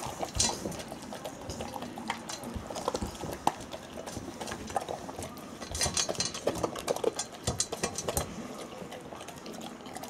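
A Bernese mountain dog eating dry kibble from a stainless steel bowl: irregular crunching, with kibble clicking and rattling against the metal.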